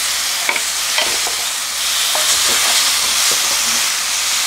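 Chicken pieces sizzling as they stir-fry in a coated pan, tossed with two wooden spoons that tap and scrape a few times. The sizzle grows louder and brighter about two seconds in.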